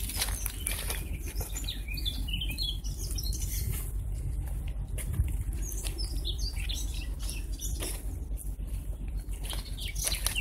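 Small birds chirping in two short bursts, over crackling steps on dry twigs and leaf litter and a steady low rumble.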